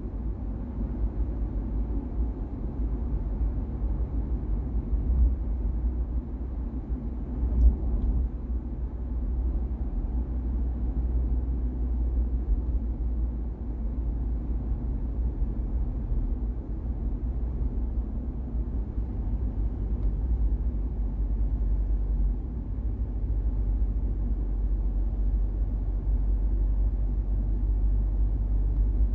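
Steady low rumble of a car being driven: tyre, road and engine noise from the moving car, with one brief bump a little under eight seconds in.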